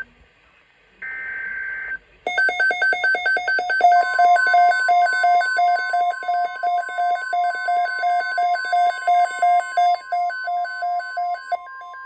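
The end of a NOAA Weather Radio SAME data burst, a short buzzy screech, then several weather alert radios going off together with rapid pulsing alarm beeps. About two seconds later the steady 1050 Hz warning alarm tone of the broadcast joins in under the beeps, signalling a tornado watch.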